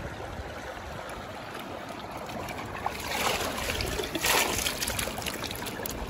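Shallow creek water trickling and splashing over rocks in a steady hiss with fine crackle, swelling louder briefly about three and again about four seconds in.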